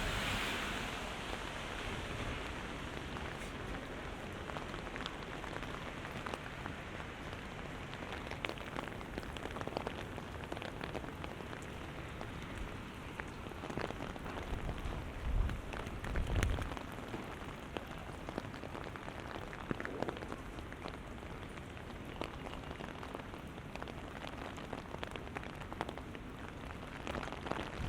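Heavy rain falling and pattering on hard surfaces, a steady hiss dotted with many small drop clicks. About halfway through come two brief low rumbles.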